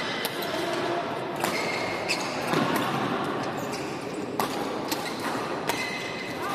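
Badminton rally: about six sharp racket strikes on the shuttlecock, a second or so apart, with short squeaks of court shoes on the wooden floor. The sound echoes through a large sports hall.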